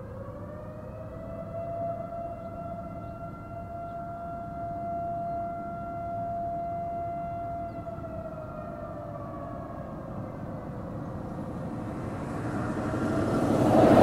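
STH-10 outdoor warning siren sounding a steady wail. Its pitch rises slightly over the first second or two, holds level, then sags back down after about eight seconds. A swelling rush of noise builds near the end.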